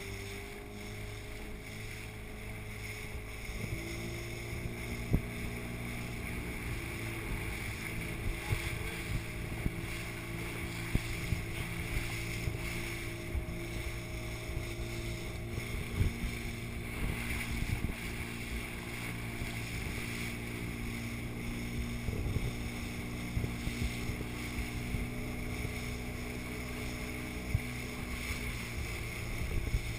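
Steady hum of a boat engine running, its pitch drifting slightly, heard with the camera at the water's surface, with water sloshing and knocking against the camera housing.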